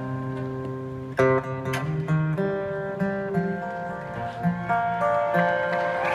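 Acoustic guitar played live, picked notes ringing over a sustained low bass line, with a sharp accented strike about a second in.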